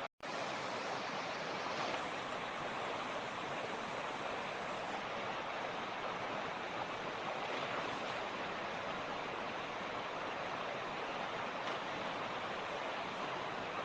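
Mountain creek flowing steadily, an even rush of water. The sound drops out for a split second right at the start.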